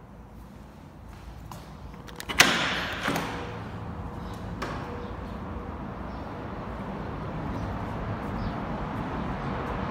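A sliding glass balcony door knocks sharply once as it is pushed open, about two seconds in, followed by two lighter knocks. Steady city traffic noise then comes in from outside and grows a little louder.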